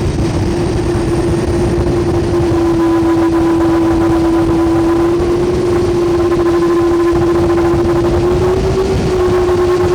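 Airbus A310 taxiing and giving off an unusual howl: a loud, steady single tone held over low engine rumble, its pitch shifting slightly about nine seconds in.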